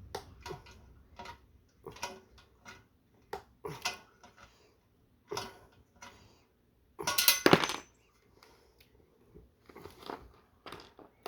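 Small metal fasteners and fruit-press parts being handled during hand assembly: scattered clicks and clinks, with a louder clatter about seven seconds in.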